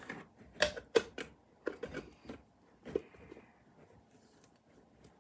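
Light clicks and knocks of a toy smoothie-maker set as the plastic blender jar and its lid are handled: about six small knocks over the first three seconds or so.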